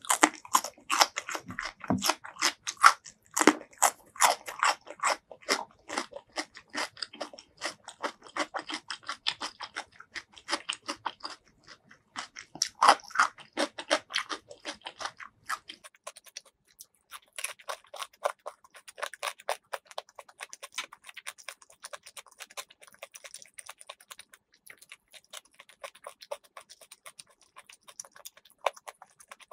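Close-miked chewing of a raw cucumber slice: dense, crisp crunches for about the first half, turning to softer, lighter chewing for the rest.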